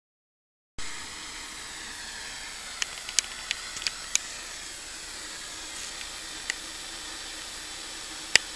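Steady hiss of television static that cuts in about a second in, with scattered sharp crackles and a louder click near the end.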